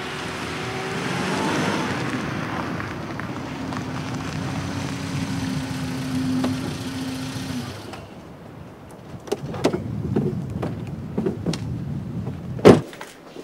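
A car drives along with steady engine and road noise, which dies away about eight seconds in as it stops. Then come a few clicks and knocks as someone gets out, and a car door shuts with a sharp thud near the end.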